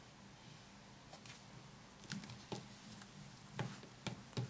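A few faint, sharp clicks and taps, about five in the second half, the last near the end the loudest, over a low steady hum.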